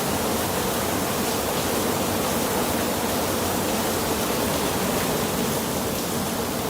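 Heavy hailstorm downpour: hail and rain pelting down in a steady, dense hiss with no letup.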